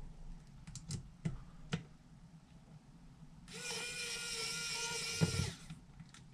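A few light clicks of small parts being handled, then a small power tool's motor whirs steadily for about two seconds, as when driving small screws into a scale model lift.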